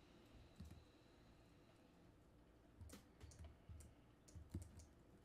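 Near silence with a few faint computer clicks, from keys and mouse buttons, mostly from about three seconds in.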